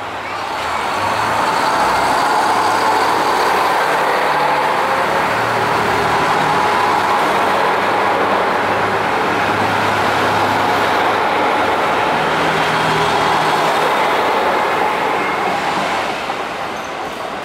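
JR Kyushu diesel railcar train (KiHa 200 'Nanohana' and KiHa 220 cars) pulling out and rolling past under power, its diesel engines running and its wheels on the rails. The sound swells about a second in, holds steady while the cars pass, and fades near the end as the last car moves away.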